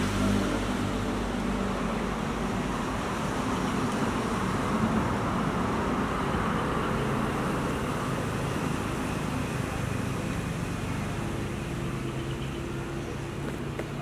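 Steady engine hum under a broad rushing noise, like road traffic running nearby; the low hum shifts in pitch about halfway through.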